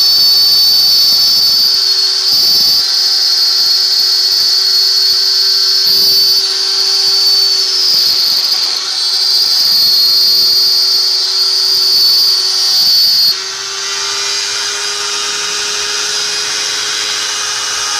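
CNC machine spindle running with a steady high whine, cutting. About 13 seconds in it gets quieter and the whine turns to a broader hiss.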